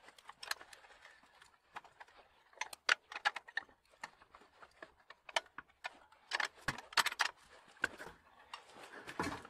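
Scattered sharp metallic clicks and clinks in short clusters: a washer, axle nut and wrench being fitted and tightened on a bicycle's rear axle.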